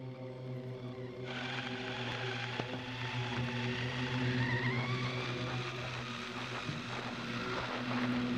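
1/6-scale 3D-printed RC snowmobile running across snow: a steady motor hum, joined about a second in by a louder rushing noise from the running track, with a whine that rises in pitch near the middle.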